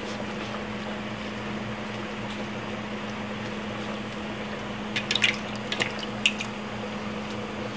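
Liquid sounds of broth in a stainless steel pot as saluyot leaves are stirred with a wooden spatula, over a steady low hum. A quick cluster of sharp clicks, the loudest sounds here, comes about five to six seconds in, as of the spatula knocking the pot.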